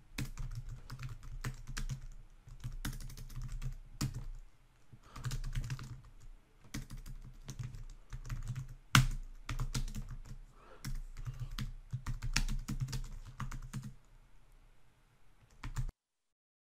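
Typing on a computer keyboard in quick runs of keystrokes with short pauses, one keystroke about nine seconds in much louder than the rest. The sound cuts off suddenly near the end.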